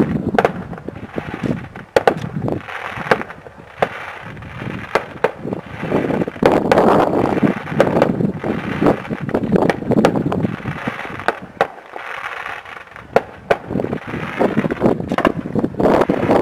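Fireworks going off: irregular sharp bangs and cracks, roughly one or two a second, over a rushing, swelling haze of sound.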